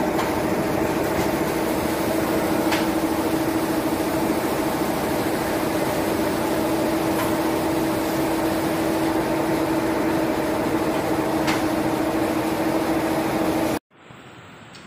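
Plastic flat bag making machine running with a steady droning hum and a faint tick about every four to five seconds. The sound cuts off abruptly about a second before the end, leaving a much fainter steady hum.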